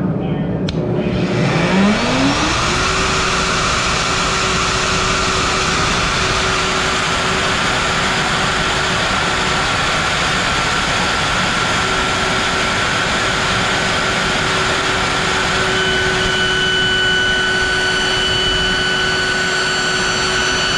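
Router on a slab-flattening sled, fitted with a wide surfacing bit, starting up: its pitch climbs over the first couple of seconds, then it runs steadily at full speed with a loud, even whine.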